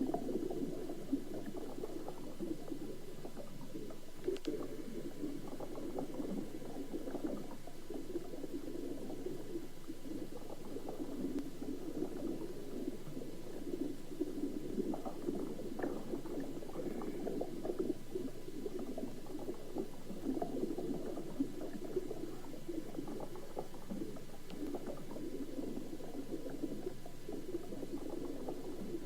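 Sea water heard from underwater: a steady, dull bubbling with many small crackles and clicks throughout.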